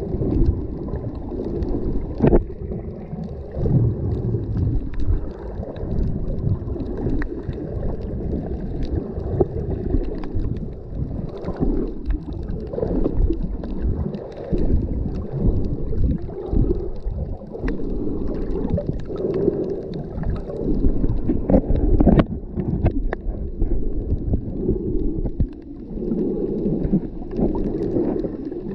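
Muffled underwater sound of shallow water heard through a submerged camera: rushing, sloshing surge with scattered sharp clicks and crackles.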